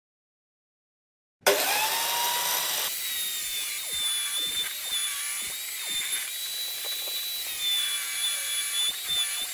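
A portable benchtop table saw rips lengthwise through a square wooden post. The saw comes in suddenly about a second and a half in, after a stretch of silence, then runs through the cut with a steady high whine.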